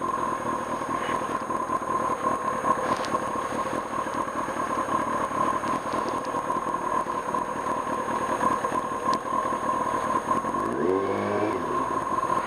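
A 1995 Kawasaki Ninja ZX-6R's inline-four engine running as the bike is ridden, over a steady rushing noise. About ten seconds in, the engine revs up and its pitch rises.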